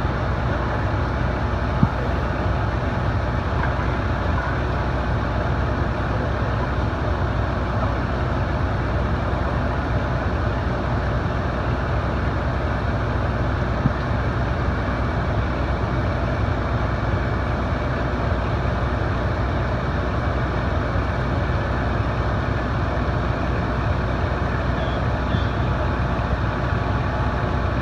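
Fire truck's diesel engine running steadily as a low, even drone, as it does while powering the aerial ladder. Two brief clicks sound about 2 seconds and 14 seconds in.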